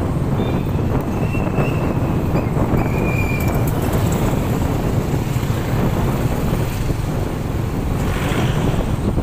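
Steady engine and road noise from a moving vehicle riding along a town street, mostly a low drone. A few short high-pitched tones sound in the first few seconds.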